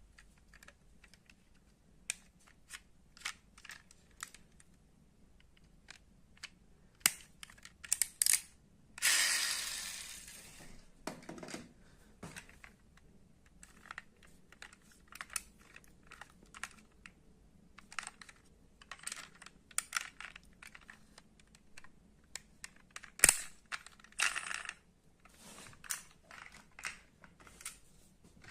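Scattered sharp clicks and taps of small die-cast metal model cars being handled and set down on a hard surface, with a short noisy rush about nine seconds in.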